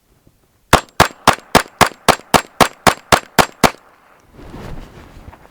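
Suppressed Colt Rail Gun .22 LR pistol fired rapidly through a Gemtech Model 62 suppressor with high-velocity rounds: about a dozen sharp shots at roughly four a second, emptying the magazine. The shots are very quiet for gunfire.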